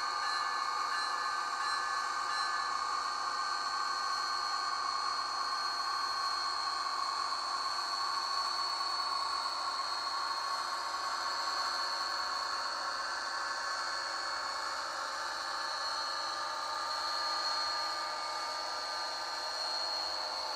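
Rapido HO-scale Amtrak F40PH model locomotives running past with their train: a steady mechanical whir with a thin high whine.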